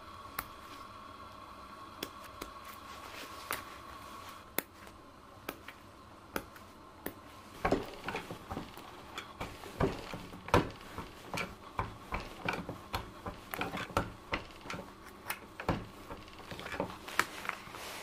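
Hand press setting small rivets around a stone set in leather: sharp metallic clicks and clacks of the press and studs. They are sparse at first, then come about once or twice a second through the second half.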